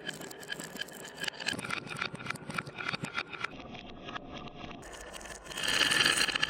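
Marbles rolling and clacking down a wooden marble run: many quick clicks and knocks. About five and a half seconds in they give way to a louder rattling rush.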